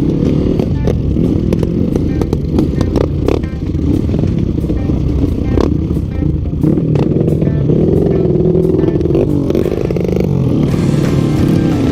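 Motorcycle engine of a Yamaha Vixion trail bike running under way, its revs rising and falling, with scattered knocks and clatter. The owner says the engine is leaking compression and lacks pull.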